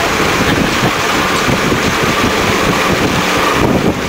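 Wind buffeting the microphone aboard a motorboat under way, over the steady rush of water from the boat's wake.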